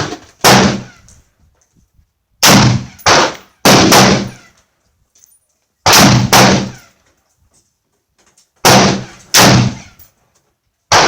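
AR-15 rifle shots fired one at a time at a shooting range, about nine sharp reports, several in quick pairs about half a second apart with pauses of two to three seconds between groups. Each shot has a short echoing tail.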